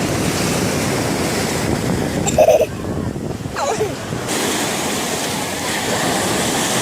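Sea waves washing onto the shore in a steady rush, with some wind on the microphone. A brief, sharper sound stands out about two and a half seconds in.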